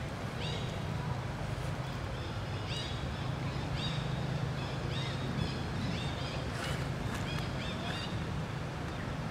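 Baby monkey crying in a long series of short, high-pitched squeals, about one or two a second, over a steady low rumble.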